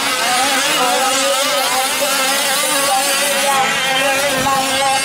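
Several 1/5-scale gas RC trucks' small two-stroke engines buzzing together, their pitches rising and falling as the drivers throttle on and off around the track.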